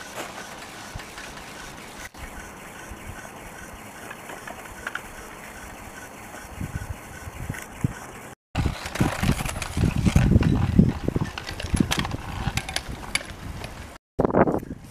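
Metasport BLV-0 surface ski lift's haul rope running over the tower's roller sheaves: a steady rolling noise with light clicks. It turns to a louder, rougher rumble after about eight and a half seconds.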